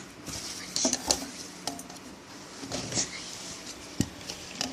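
Scattered light clinks and taps of a glue bottle and bowl being handled while clear glue is poured slowly, with faint voices.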